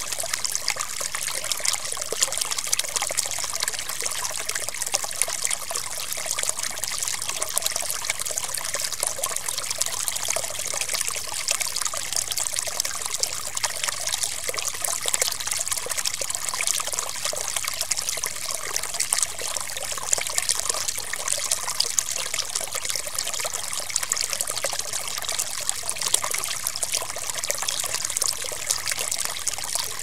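Small stream of water flowing and trickling steadily, a continuous bright babbling with little bass.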